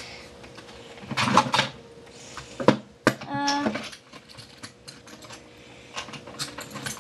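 Scratching at the scratch-off panel on the back of a trading card: an irregular run of small scrapes and clicks, with a brief tonal sound about three seconds in.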